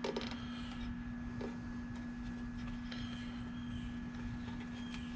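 Faint clicks and light taps of hands working parts on a small generator's carburetor, heard over a steady low hum.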